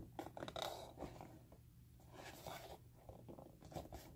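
Faint crinkling and scratching of plastic packaging being opened by hand, coming in a few short, soft bursts.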